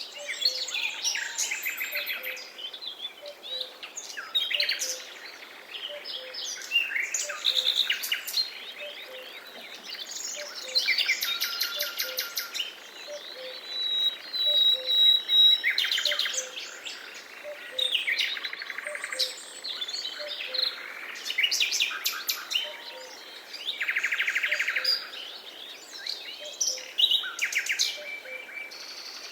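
Several songbirds singing and chirping over one another, with quick trills, rapid strings of repeated notes and whistled calls. Underneath, a faint low note repeats steadily.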